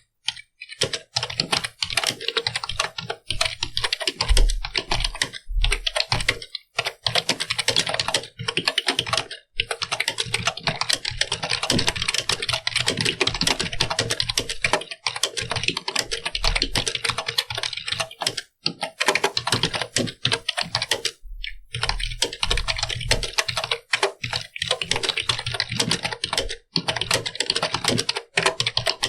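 Fast, continuous typing on a computer keyboard: rapid key clicks in long runs, broken by a few brief pauses, with some deeper knocks among the keystrokes.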